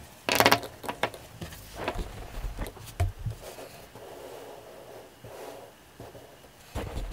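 Handling sounds on a desk: a short, loud rustle about half a second in, then scattered light taps and rubbing as ink pens are set down beside the drawing paper.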